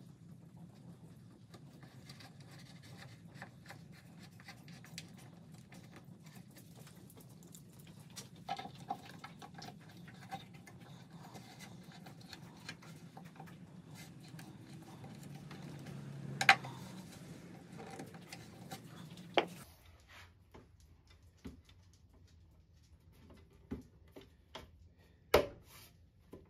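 Small scattered clicks and scrapes of a hand screwdriver turning screws through a cast-iron desk bracket into the wooden seat. A few sharper knocks come as tools and parts are handled, the loudest a little past halfway and near the end.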